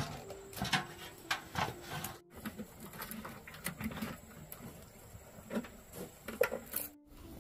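Split bamboo sticks clicking and scraping against each other and the metal tray as hands clamp a fish between them and tie them with plant strips: irregular light taps and rustles, broken twice by short gaps.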